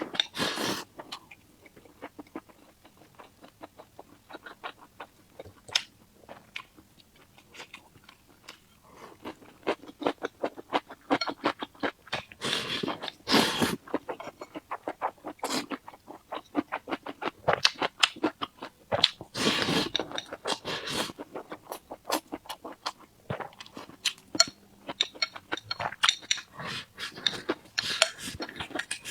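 Close-miked chewing of food, with dense runs of small mouth clicks and a few longer noisy bursts about halfway through and again about two-thirds of the way in.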